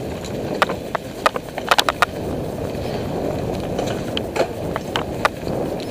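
Mountain bike riding a dirt singletrack over dry leaves: a steady rushing of tyres and wind, with frequent sharp clicks and rattles from the bike, several in quick succession about two seconds in.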